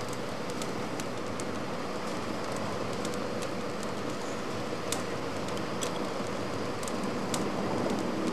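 Steady rushing open-air background noise with scattered faint crackles and clicks.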